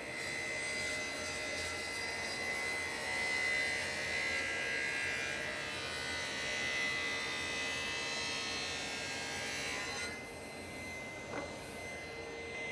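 Table saw running and cutting a miter along an elm slab in one slow pass. The cutting noise ends about ten seconds in, while the saw's steady whine carries on.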